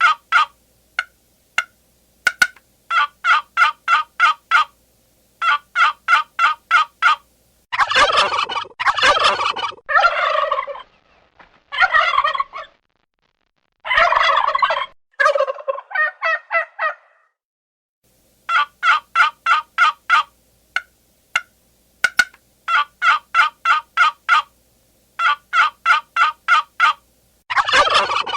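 Turkeys calling: runs of quick, evenly spaced notes, about seven a second, broken by clean silences. Longer rattling gobbles come about a third of the way in and again just past the middle.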